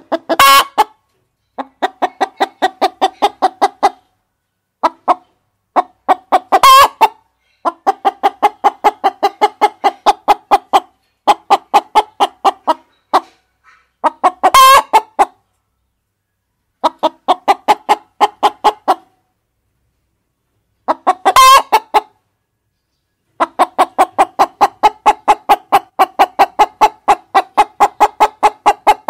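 Hens clucking in long rapid runs of about five clucks a second. A louder, shriller call breaks in every several seconds, and there are short pauses between the runs.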